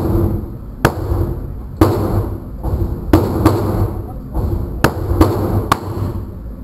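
Gunshots fired in an indoor shooting range, about seven at uneven intervals, each ringing out briefly off the range walls.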